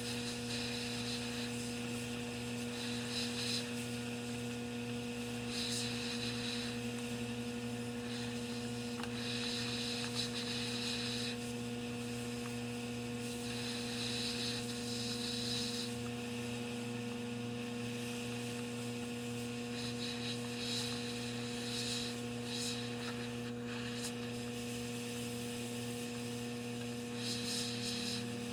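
Steady electrical mains hum with several overtones, with short patches of faint hiss coming and going every few seconds.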